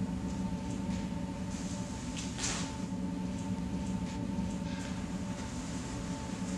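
A steady low hum with a faint, constant high tone above it, and a brief scuff or swish about two and a half seconds in.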